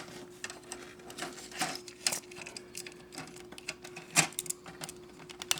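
Plastic parts of a Zoids Gun Sniper model kit clicking and tapping as they are handled and pressed together, with one louder snap about four seconds in.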